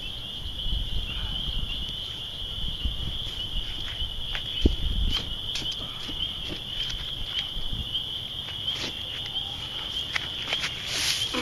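A steady high-pitched chorus of night insects, with scattered crackles and scuffs from burning pine straw being stamped and stirred underfoot, busiest near the end.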